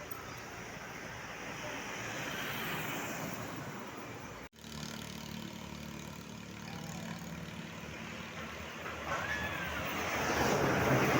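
Road vehicle noise: engines running with road and traffic noise. The sound cuts out abruptly about four and a half seconds in and comes back as a steadier low engine hum. It grows louder near the end as a vehicle passes.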